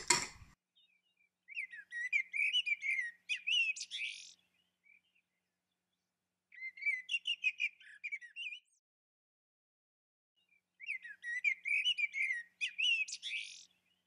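A spoon clinks briefly in a mug at the start, then a songbird sings three quick phrases of rapid, varied chirps and trills, each two to three seconds long, with pauses between them.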